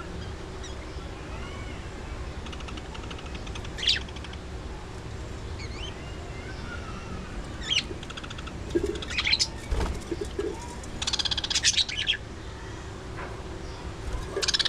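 A flock of budgerigars chattering with soft warbling, broken by several loud, sharp chirps, the densest run of them about eleven seconds in.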